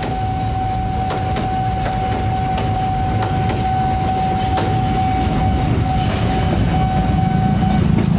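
Empty freight flatcars rolling past at close range: a steady rumble with irregular clicks as the wheels cross the rail joints. A steady high tone runs along with it, breaks up, and stops shortly before the end.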